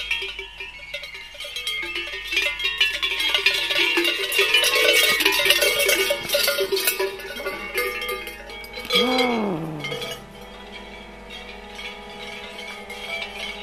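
Large cowbells worn by Krampus figures clanging rapidly and jangling, loudest in the middle. About nine seconds in, one deep cry falls in pitch, and after it the clanging gives way to quieter sustained ringing tones.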